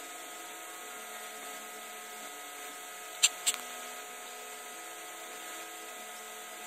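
Steady hum and hiss with a few faint low notes underneath, broken by two sharp clicks about a quarter of a second apart a little past three seconds in.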